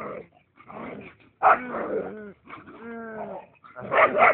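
Dog growling and barking in rough play with a person, in short repeated bursts, with one longer whining cry about three seconds in.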